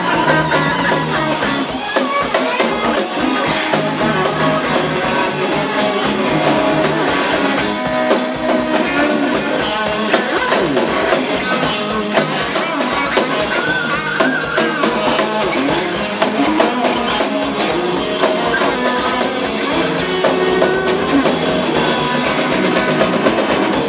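Rock band playing live: electric guitars, bass guitar and drum kit, loud and steady.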